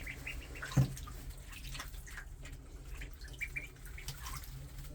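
Ducklings dabbling and splashing in a shallow waterer, spilling water, with a few short high peeps. A single thump about a second in is the loudest sound.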